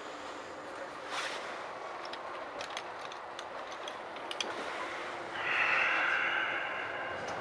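Steady running noise heard from inside a Metra commuter train car, with a few light clicks. About five seconds in, a louder high-pitched sound made of several tones comes in and holds for about two seconds.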